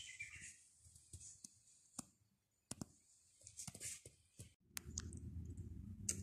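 Faint handling noises: scattered light clicks and sharp taps with some rustling, as of items being handled. After a brief dropout about three-quarters in, a low steady hum comes in.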